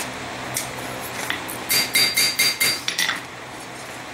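Hammer striking steel at the anvil: a quick run of about six ringing blows about two seconds in, after a couple of light clicks.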